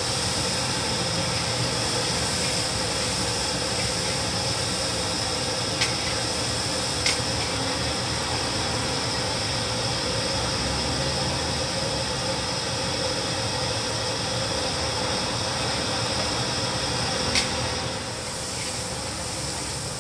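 Freshly blended spice paste sizzling steadily in hot oil in a large steel wok, stirred with a steel ladle that clinks against the wok three times. The sizzle eases a little near the end.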